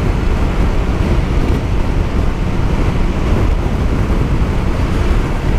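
Steady rush of wind over the microphone mixed with the running engine and tyre noise of a Honda NC 750X motorcycle, a parallel-twin, cruising at about 80 km/h.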